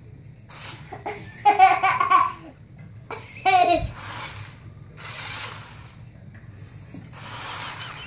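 A person laughing in two loud bursts, about a second and a half and three and a half seconds in, between short whirring bursts from a remote control toy car's electric motor as it drives.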